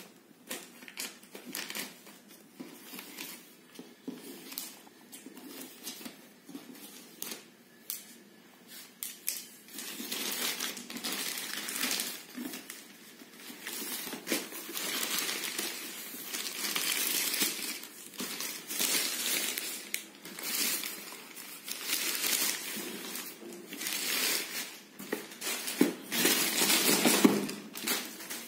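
Scissors snipping through a plastic shipping bag with scattered small clicks, then the plastic crinkling and rustling in repeated bursts, louder from about a third of the way in, as the bag is opened and a shoe box is pulled out of it.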